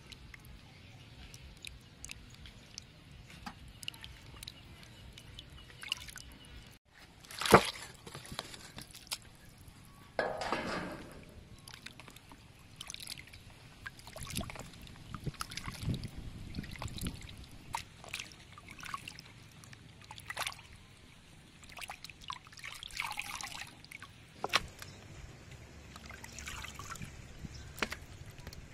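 Water sloshing, trickling and dripping as hands rub and turn raw chicken breast pieces in a basin of water, in irregular short bursts with small knocks. One sharp, louder knock comes about seven and a half seconds in.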